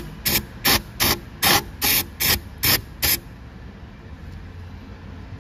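Aerosol can of ether sprayed in short, quick spurts, about two or three hissing bursts a second, into the injector bore of a Caterpillar C15 cylinder head to flush out wire-brush debris. The spraying stops about three seconds in.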